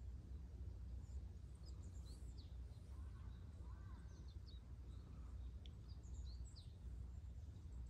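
Quiet park ambience: a steady low rumble with scattered faint chirps of small birds, and a couple of faint distant crow caws around the middle.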